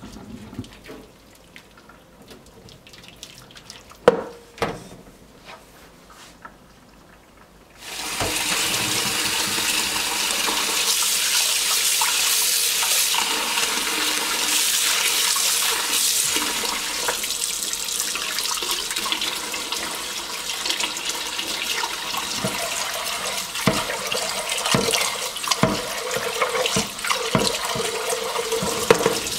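Kitchen tap running into a stainless steel pot in a sink while beef short ribs are rubbed and washed clean by hand under the stream, with scattered knocks against the pot. The tap opens about eight seconds in; before that only two sharp knocks, about four seconds in, break a quiet stretch.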